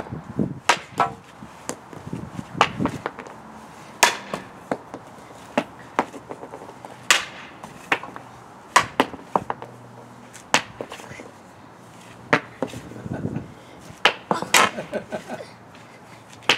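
A hockey stick striking pucks on an asphalt driveway: a dozen or so sharp clacks, one every one to two seconds, as pucks are shot one after another.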